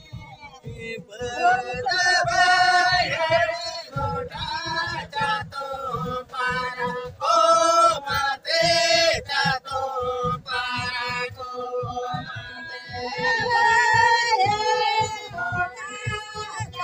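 Santali folk song sung by a woman and men together, accompanied by bowed banam (Santali wooden fiddles) holding a steady note under the voices.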